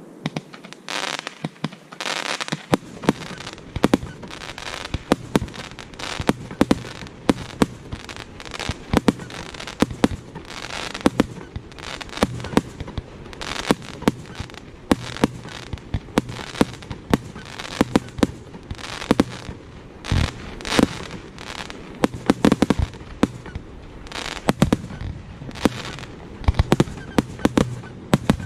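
Fireworks display: a rapid, continuous series of sharp shell bursts and bangs, several a second, mixed with a few longer hissing, crackling bursts.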